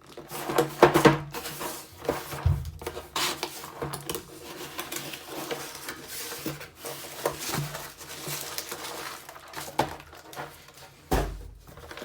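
Packaging being handled and opened: rustling, crinkling and small knocks in irregular bursts as figures are taken out of a box, with a heavier thud near the end.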